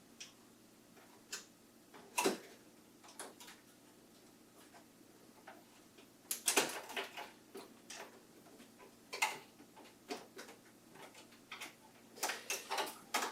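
Irregular clicks, taps and light knocks of hard plastic parts being handled on an inkjet printer, with a busier run of clicks about six seconds in and again near the end.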